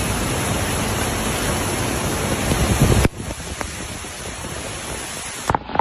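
Loud, steady rush of storm water that cuts off abruptly about three seconds in. A quieter hiss and a few sharp clicks follow.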